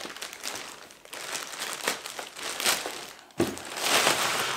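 Thin clear plastic bag crinkling and rustling as it is pulled off a backpack, with a louder burst of crinkling about three and a half seconds in.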